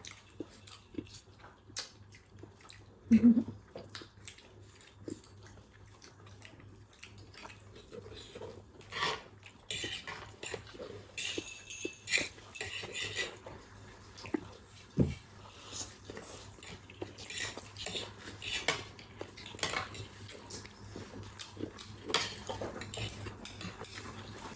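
Scattered light clinks and taps of cutlery against plates and bowls while eating, growing busier about halfway through, with one brief vocal sound about three seconds in.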